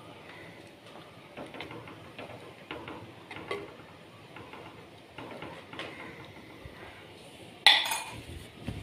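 A metal ladle stirring a thick coconut-milk fish curry in a clay pot, with scattered light taps and scrapes against the pot, and one louder clank near the end.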